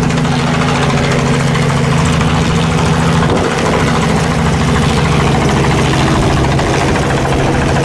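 Helicopter's engine and rotor running steadily, a loud, even, low hum, idling on the ground before take-off.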